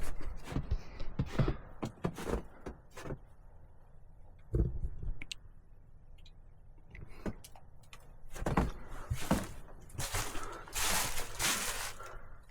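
Footsteps on snow and rock: a run of short scuffs and knocks, a single thump partway through, then longer crunching rustles near the end.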